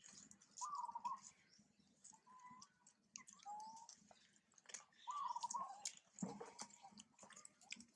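About five short, wavering coos from an infant long-tailed macaque, each under half a second, spread over several seconds, with faint clicks of chewing.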